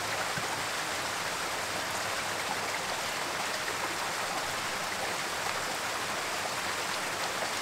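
Steady rushing of a mountain creek.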